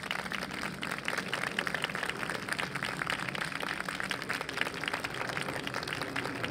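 A small audience applauding: a steady patter of hand claps.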